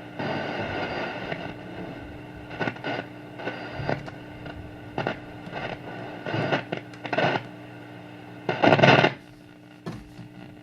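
Zenith G725 tube radio tuned between stations: a steady hum under crackles of static and short snatches of broadcast sound, with the loudest burst a little before the end.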